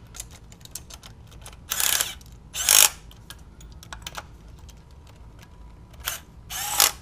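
Cordless ratchet run in several short bursts, driving in the thermostat housing bolts, with small clicks of tools and parts being handled in between.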